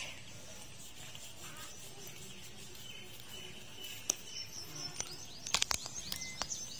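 Small birds chirping in the background, in short high calls. A few sharp clicks come about four seconds in and again in a quick cluster about five and a half seconds in.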